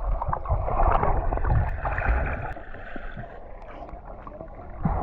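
Water splashing and sloshing close to the microphone, with a dense noisy wash and an uneven low rumble.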